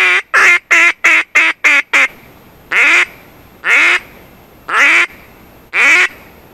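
Hand-blown duck call worked close by, quacking like a hen duck: a long quack, a quick run of about seven short quacks, then four slower, drawn-out quacks about a second apart.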